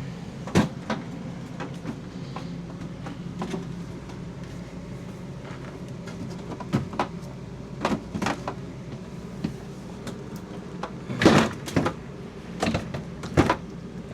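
Scattered knocks and clunks of an RV refrigerator's doors and contents being handled, the loudest a cluster of bangs about eleven seconds in, over a steady low hum.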